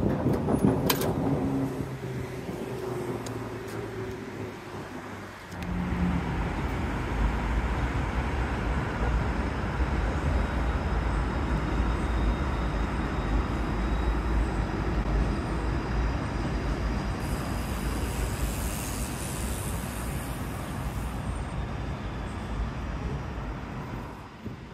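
Motor vehicle running close by: a steady low rumble that comes up suddenly about five seconds in and then holds, with a few seconds of high hiss past the middle.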